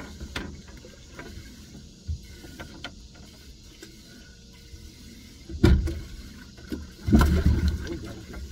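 Water splashing and sloshing with knocks against a boat, in two loud bursts about five and a half and seven seconds in, the second one longer, and a few light clicks before them.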